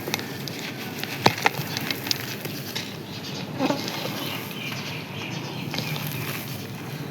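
Dry, crispy sand crust crumbling, a continuous fine crunching and crackling with a few sharp snaps a little over a second in.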